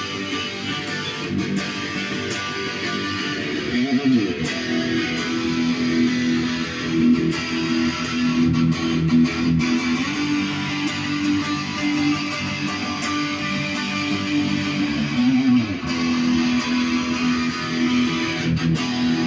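Jay Turser JT-50 Custom SG electric guitar played through an amplifier with the gain turned all the way up, tuned to drop D. It gives sustained distorted chords and notes, with a pitch bend twice, about four and about fifteen seconds in.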